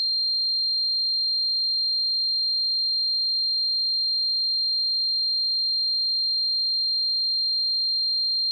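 Simulated tinnitus: a single steady, high-pitched pure tone, held without any change in pitch or loudness.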